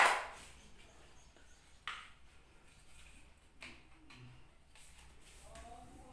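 Hard plastic knocks and clacks from a canister vacuum cleaner's hose and wand being handled while it is fitted together: a sharp knock at the start, a second about two seconds in, and a fainter one near four seconds in.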